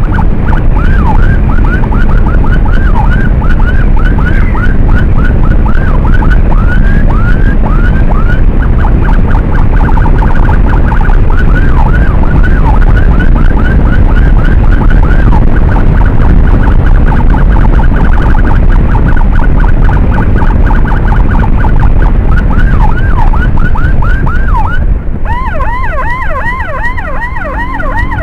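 Electronic emergency siren yelping rapidly, several quick falling sweeps a second, over heavy wind and road noise from a motorcycle riding at speed. About 25 seconds in the wind noise drops and the siren comes through clearer, with wider sweeps.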